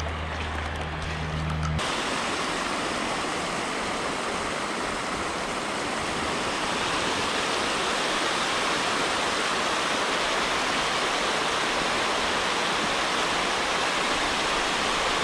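Water rushing steadily over a concrete weir, a dense even roar that gets louder suddenly about two seconds in. Under the first two seconds there is a low steady hum.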